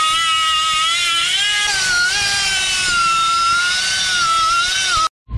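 Cut-off tool with a thin zip disc grinding into the steel clutch plate, a high whine whose pitch wavers up and down as the disc bites and eases; the clutch is stuck fast to the flywheel and is being cut off. The whine cuts off abruptly near the end.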